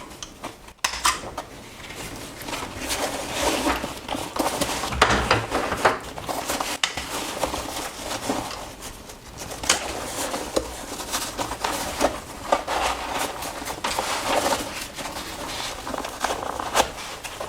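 Rustling and irregular clicking of a small fabric carry bag and its waist-belt strap being handled as the belt is taken off.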